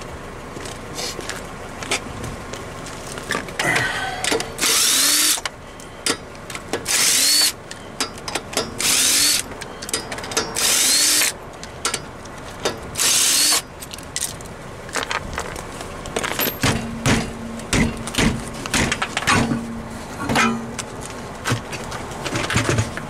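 Impact wrench spinning off the front wheel's lug nuts: five short whirring bursts about two seconds apart, each rising in pitch as the tool spins up. Then a run of knocks and clatter as the nuts and the wheel are handled.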